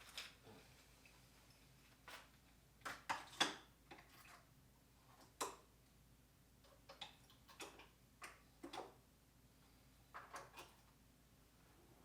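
Hand tools clicking and clattering as they are picked up and set down while a toolbox is sorted: about a dozen short, irregular knocks, loudest about three and a half seconds in.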